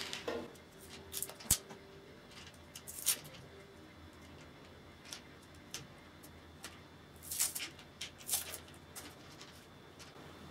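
Clear sticky tape being peeled by hand off a plastic egg-shaped capsule: faint, scattered crackles and ticks, with a sharper knock about a second and a half in and a louder run of crackling near the end.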